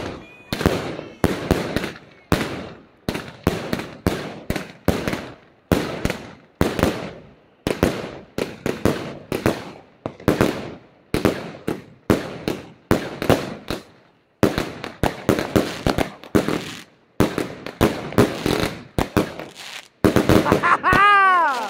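Lesli Wild Lion firework battery firing shot after shot in a steady string, roughly two a second, each a sharp bang with a short decaying tail.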